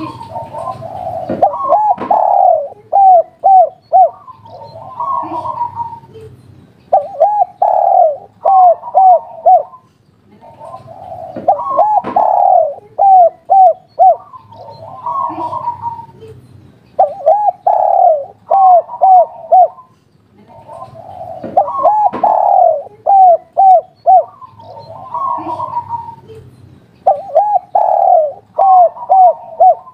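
Spotted dove cooing its 'kuk 3' song: phrases of rising-falling coo notes that end in a quick run of short hooked notes. The phrases repeat about every five seconds.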